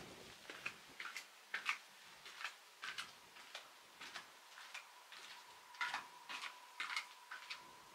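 Footsteps: shoes tapping and scuffing on the gritty stone floor of a rock tunnel, irregular light taps about two a second. A faint steady high tone comes in about five and a half seconds in.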